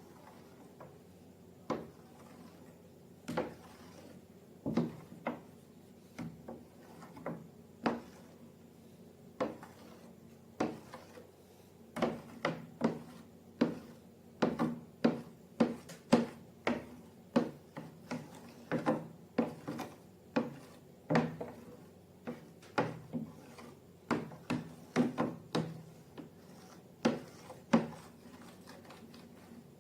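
Irregular series of sharp taps and knocks of hard objects, each with a short low ring. They come sparsely at first, then about one to two a second from just under halfway through.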